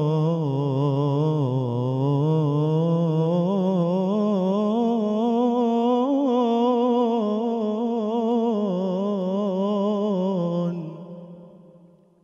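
Male munshid singing an unaccompanied Islamic ibtihal (religious supplication) into a microphone. It is one long melismatic phrase drawn out on a held vowel, with rapid wavering ornaments, trailing off near the end.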